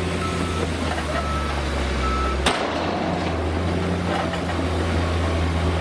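Heavy dump truck's diesel engine running steadily with its tipper bed raised, dumping sand. A reversing alarm beeps about once a second for the first two seconds, and there is one sharp click about two and a half seconds in.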